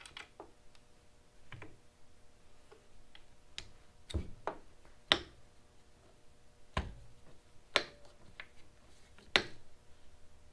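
Hex key clicking and tapping against a roof rack crossbar's foot and its screws as they are tightened: irregular sharp clicks, a handful louder than the rest.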